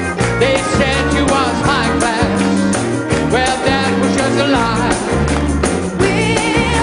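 Upbeat rock-and-roll music: a band with a bass line stepping through a new note about every half second under bending melody lines.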